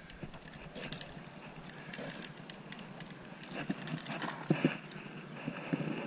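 Footsteps on a concrete path, then brushing into thick weeds, with irregular clicks and a couple of louder knocks in the second half.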